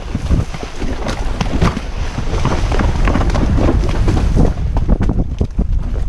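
Wind buffeting the microphone as a horse runs after a bull, with water splashing and hooves striking as both animals cross a shallow creek in the first half, then a steadier rumble of wind and hoofbeats.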